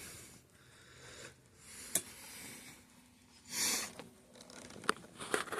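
Handling noises on an acrylic guitar body as a part is pushed out of it: a few sharp clicks and knocks, and a short hissing burst a little past halfway.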